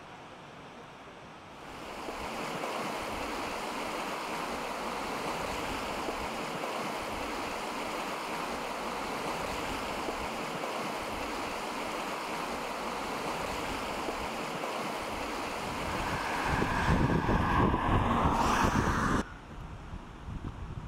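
Brown floodwater rushing over a submerged ford in a river in spate: a steady rush of water. Near the end wind buffets the microphone, making it louder with a low rumble, and then it drops off suddenly.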